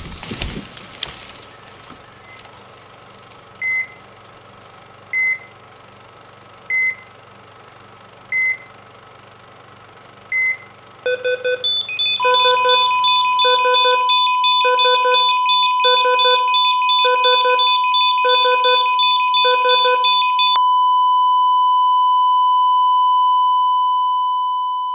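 Electronic beeps, single and evenly spaced about every second and a half. They then give way to faster pulsed beeping over a held tone, which ends in one long steady tone that fades out near the end.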